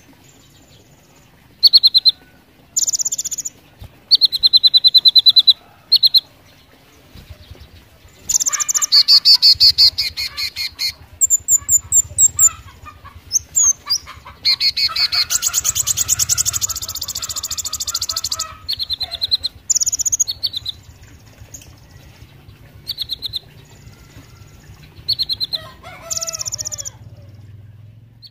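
Kolibri ninja (konin) singing: bursts of rapid, high-pitched ticking trills about a second long, with short pauses between them and two longer runs of several seconds a third of the way in and around the middle.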